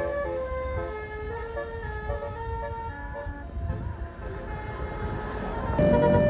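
A tour bus's multi-note Basuri telolet horn playing a tune in held, stepping notes over the bus's engine running. Near the end a louder horn note comes in.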